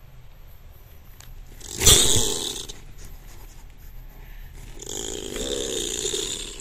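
Young opossum growling, the defensive threat sound of a nervous animal that only wants to get away. A sudden loud raspy burst comes about two seconds in, then a longer raspy growl near the end.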